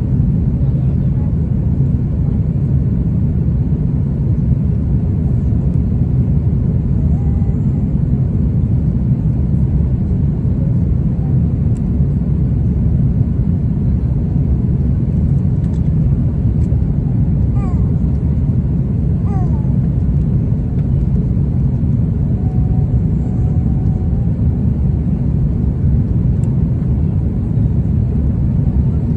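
Steady low rumble of engine and airflow noise inside an Airbus airliner's cabin in flight.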